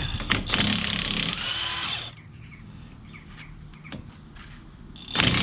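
Impact wrench hammering on a 12 mm brake caliper bolt in two bursts, one about a second long near the start and another near the end. The bolt's guide pin is spinning with it rather than coming undone.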